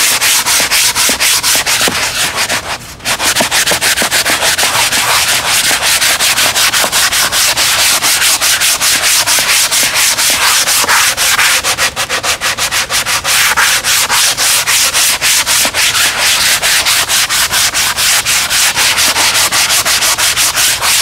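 Hand sanding with a coarse 80-grit sanding sponge, rubbed in quick, steady back-and-forth strokes over spackle on a foam model-airplane wing. There is a brief break in the strokes about three seconds in.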